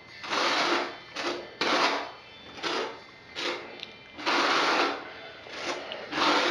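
A trowel scraping thinset mortar in repeated short strokes, about eight of them at uneven intervals.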